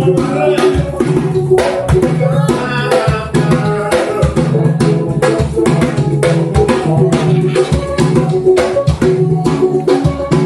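Percussion group playing drums and hand percussion in a fast, dense rhythm, over sustained low pitched tones.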